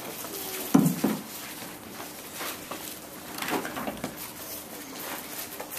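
Large paper picture book being handled: two soft thumps about a second in as it comes down on the table, then paper rustling as its pages are turned.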